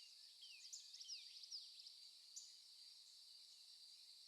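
Faint nature-ambience sound effect: birds chirping in quick, falling notes, clustered in the first second and a half with a lone chirp later, over a steady high-pitched insect drone like crickets.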